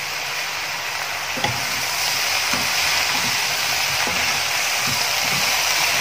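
Mixed vegetables stir-frying in a kadhai with a steady sizzle. Irregular stirring scrapes and knocks in the pan start about a second and a half in.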